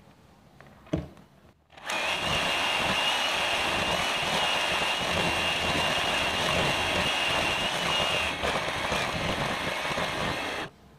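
Electric hand mixer beating cake batter in a plastic bowl: its motor starts about two seconds in, runs steadily with a thin high whine, and cuts off abruptly just before the end. A short knock comes about a second in, before the motor starts.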